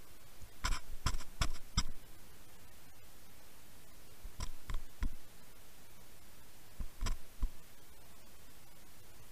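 Steady hiss from a towed underwater camera housing. Sharp clicks and knocks come in three short clusters over it: about four in quick succession in the first two seconds, three more midway, and another few near the end, as the tackle and housing rattle under tow.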